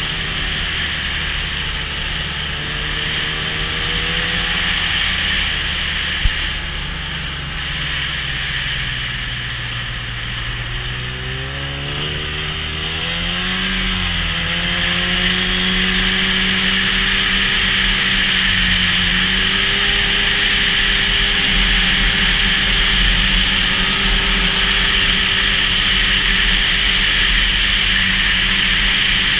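Snowmobile engine running while the sled is ridden: its pitch eases down for several seconds, rises as it accelerates about twelve seconds in, then holds steady at speed. One sharp click about six seconds in.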